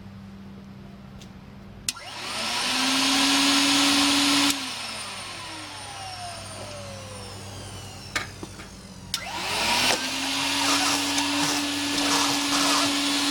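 1950s Nobles SpeeDry V24B industrial vacuum floor cleaner's motor, a 2008 replacement, switched on with a click about two seconds in and spinning up to a steady whine with a strong rush of air. About four and a half seconds in it is switched off and winds down in a falling whine. It starts again near ten seconds and runs steadily.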